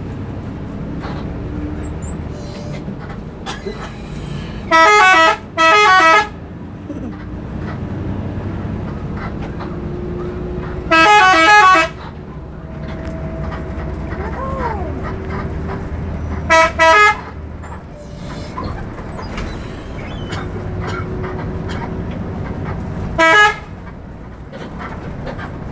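Bus telolet horn, an Indonesian multi-tone musical horn, sounded in six loud blasts of rapidly alternating notes: a quick pair about five seconds in, one longer blast around the middle, another quick pair a few seconds later and one short blast near the end. Between blasts the bus's engine and road noise run steadily.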